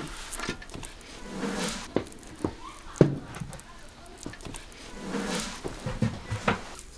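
Handling noises from a white cloth bag being held over a metal basin and tied off with string: cloth rustling, with a few sharp knocks, the loudest about three seconds in.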